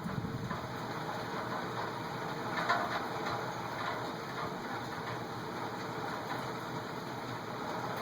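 A severe thunderstorm's wind and rain make a steady roar, which swells briefly about three seconds in.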